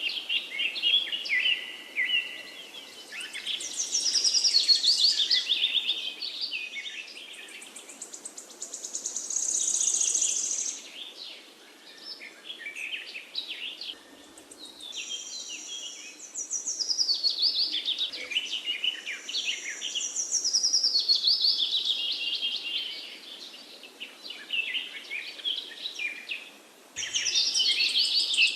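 Songbirds singing continuously in overlapping, high-pitched phrases of rapid trills and warbles, one after another, with a short lull near the end before the song starts again.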